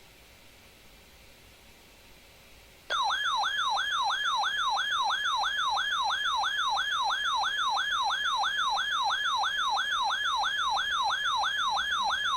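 Weather alert radio's warning siren going off about three seconds in: a loud electronic warble rising and falling about three times a second, signalling that a new weather warning has been received.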